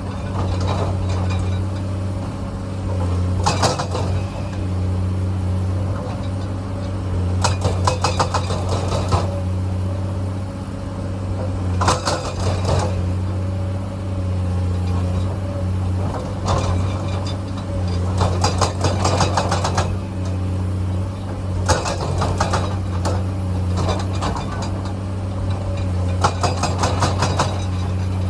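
Komatsu excavator's diesel engine running steadily, with bursts of rattling clatter of rock against the bucket about every four seconds as it digs.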